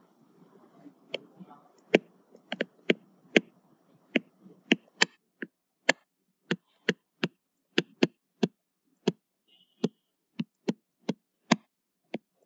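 A stylus tapping against a tablet screen while equations are handwritten: a run of sharp, irregular clicks, about two a second.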